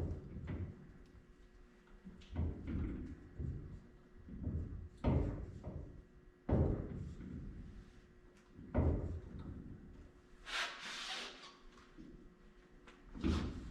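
Irregular workshop thumps and knocks, about eight in all, one to two seconds apart, with a short hiss about ten and a half seconds in.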